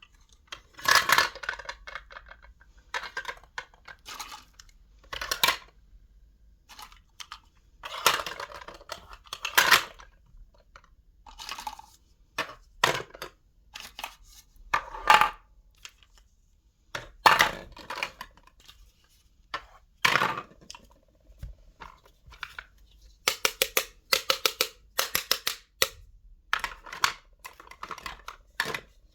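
Small kitchen toys being handled: a run of sharp clicks and taps mixed with short scraping or tearing noises, coming in irregular bursts with brief pauses between.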